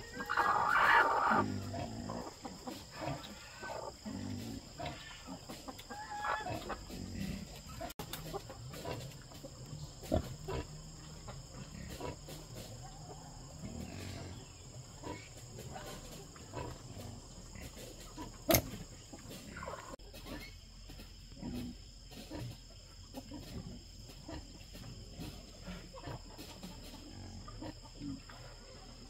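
Farm animal calls: a louder call in the first second or so, then scattered short, fainter calls, with a single sharp click about two-thirds of the way through.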